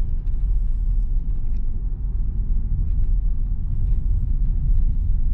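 Interior cabin noise of a 2022 Mitsubishi Xpander CVT driving along a road: a steady low rumble of tyres and engine.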